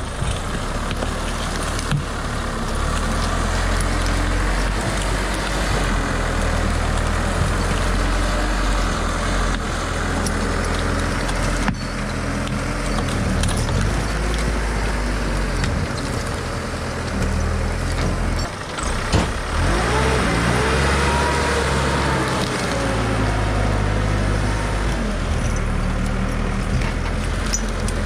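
Timberjack 240C skidder's diesel engine running steadily. About two-thirds of the way through it is revved up and then eases back down. A few brief sharp clicks stand out over it.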